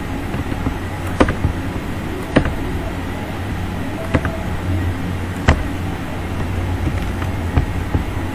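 Several sharp computer mouse and keyboard clicks, one every second or so, over a steady low background hum.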